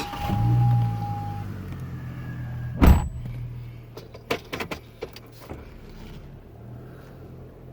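A vehicle engine comes up and runs with a steady low hum. A steady beep stops about a second and a half in, a door shuts with a sharp knock about three seconds in, and a few smaller clicks and knocks follow.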